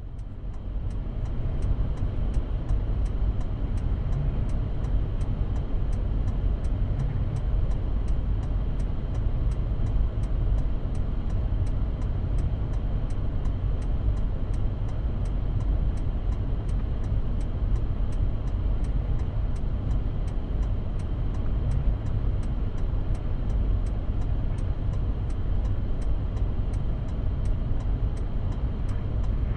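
Motor vehicle running steadily with a low rumble, and a fast, even ticking on top of it.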